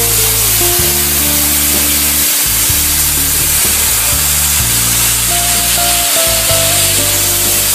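Steady, loud hiss of a portable CNC plasma cutting torch cutting stainless steel sheet, heard under background music with a bass line and melody.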